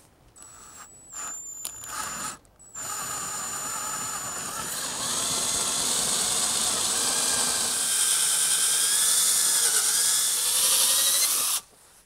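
Ridgid power drill with a small hole saw cutting into a wooden door jamb. It starts and stops in a few short bursts, then runs steadily for about nine seconds as the saw bores through, and stops abruptly near the end.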